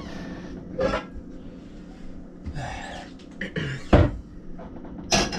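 A cooking pot being pulled out of a lower kitchen cabinet: cookware clattering and rummaging in the cupboard, with a few separate knocks and a heavy knock about four seconds in.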